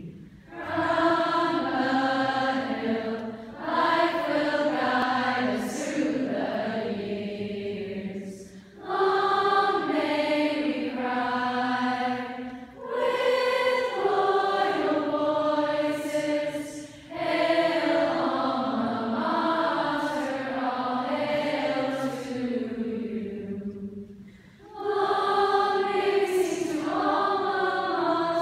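A large group of young women's voices singing the school alma mater together, a slow melody of long held notes in phrases with short breaks for breath between them.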